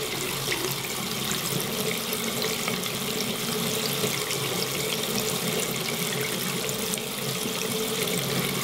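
Water running steadily from a faucet into a sink.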